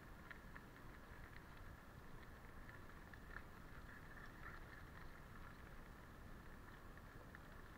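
Faint steady rolling noise of a Rockrider mountain bike riding on a gravel path, with scattered small clicks and rattles.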